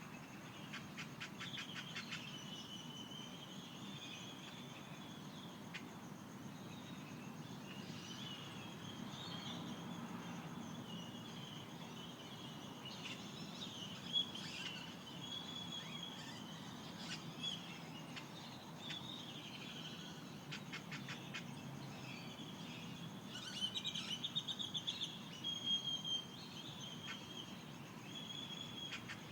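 Dawn chorus of desert birds: several birds chirping and whistling, with a few fast clicking trills, the loudest about two-thirds of the way through. A steady high thin tone and a low rumble run underneath.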